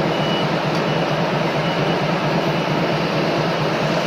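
Machinery running steadily: an even mechanical rush with a faint thin high whine that comes and goes.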